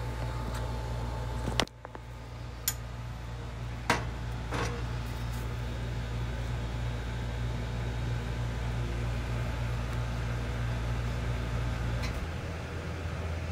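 Steady low electric hum of a household appliance or fan. A higher tone cuts off with a sharp click about a second and a half in, and a few more clicks follow over the next three seconds. The hum shifts near the end.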